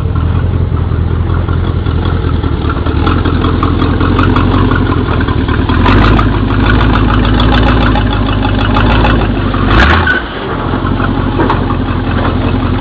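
1978 Chevy Camaro race car's V8 engine running at a fast idle, the revs rising about six seconds in and a short blip of throttle near ten seconds before it settles back.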